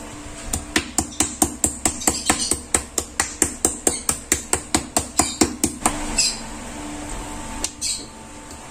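Rapid, even knocks, about five a second for some five seconds, from chicken breast being pounded flat on a plastic cutting board to tenderize it. A single knock follows near the end.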